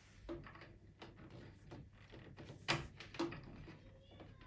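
Light clicks and knocks of hands handling a power cord and plug while connecting an embroidery machine, with two sharper knocks a little after the middle.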